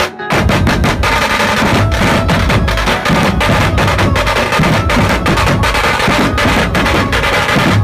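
Dhumal band music: drums and percussion playing a fast, dense beat that comes in after a brief break at the very start.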